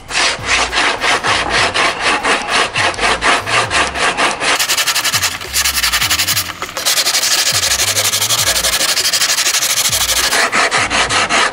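Coarse 36-grit sandpaper on a hand sanding block rubbed rapidly back and forth over the painted carbon-fibre hull of a rowing shell, stripping the paint and primer down to the carbon around a repair. The strokes come quickly and evenly, then run faster and blur into a near-continuous rasp in the second half.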